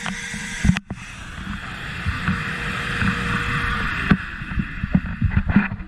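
Shop vac running with its crevice tool down in a dryer vent, a steady hissing rush with a faint whine, broken by sharp knocks about a second in and again around four seconds as the plastic tool bumps the vent, and dying away at the end. The sound is muffled, recorded through a camera's waterproof case.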